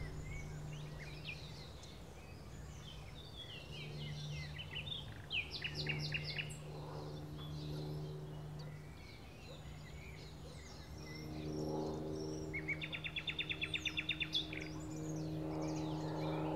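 Small birds chirping and calling, with a fast rattling trill near the end, over a steady low hum.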